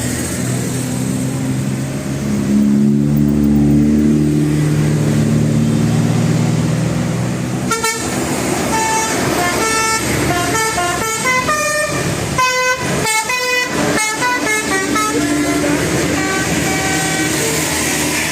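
A bus engine runs loud as the bus passes. About eight seconds in, a telolet horn, a multi-tone musical bus horn, plays a fast run of short notes that keep jumping in pitch, then settles into a held tone near the end.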